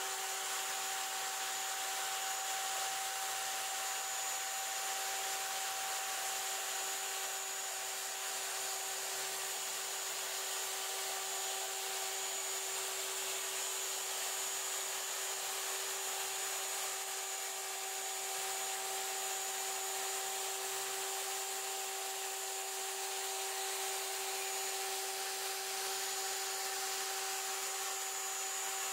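CNC router spindle running with a steady pitched whine while its bit carves a V-carve sign into precision board (high-density urethane sign foam), with the rushing noise of the cut underneath.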